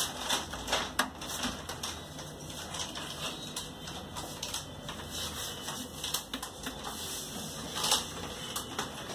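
Irregular light clicking and tapping, with a few sharper clicks near the start and about eight seconds in.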